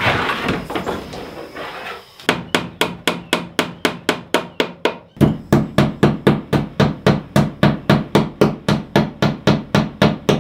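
Hammer tapping cable staples into a wooden ceiling joist to fasten an electrical cord: a rapid, steady run of about four strikes a second that begins about two seconds in, after some rustling, and grows heavier about halfway through.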